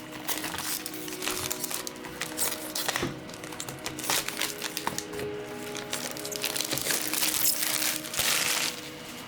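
Packaging crinkling and rustling as it is handled and opened, in dense irregular crackles with a louder rustle near the end, over background music.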